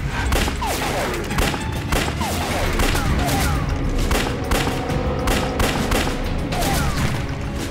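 Rapid pistol gunfire: a string of sharp shots, two or three a second, over dramatic background music.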